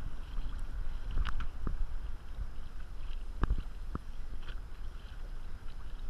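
Small waves lapping and slapping against the plastic hull of a sit-on-top kayak, with a few sharp slaps, the strongest about halfway through, over a steady low rumble of wind on the microphone.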